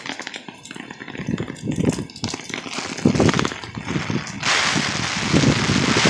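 Heavy torrential rain with gusting wind: scattered drip taps at first, wind rumbling on the phone microphone in gusts from about a second in, and about four and a half seconds in a loud, steady hiss of pouring rain comes in.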